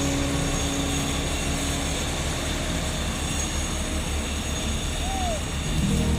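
Heavy road-paving machinery running with a steady low engine drone.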